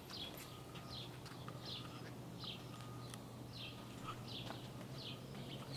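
A small bird calling, a short falling chirp repeated over and over, less than a second apart, over a faint steady low hum.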